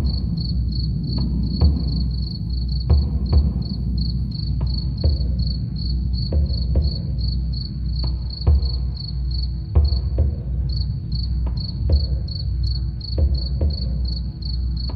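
Crickets chirping in a steady high pulsing rhythm, about three to four chirps a second, which runs together into a brief trill about ten seconds in. Underneath are a deep low drum drone and soft drum strikes at irregular intervals.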